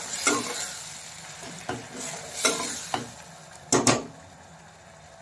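Steel spoon stirring and scraping onion and tomato paste around a stainless steel pan over a gentle sizzle, the masala cooking on low heat. Two sharp clanks of the spoon against the pan come close together near the end, after which only the soft sizzle remains.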